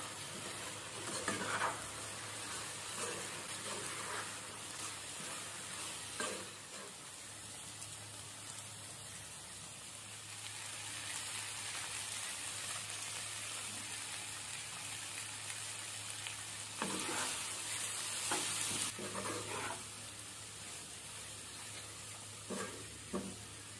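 Garlic chicken pieces sizzling steadily in a nonstick frying pan, with a spatula scraping and stirring through them in several bouts: near the start, about six seconds in, for a few seconds past the middle, and twice near the end.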